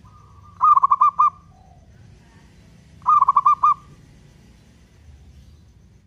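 Zebra dove (perkutut) cooing: two short phrases, each a quick run of five or six staccato notes, about two and a half seconds apart.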